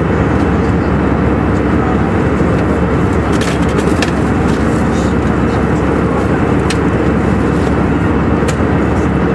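Steady cabin noise of an airliner in cruise flight: the even rush of engines and airflow, heard inside the cabin, with a few faint clicks.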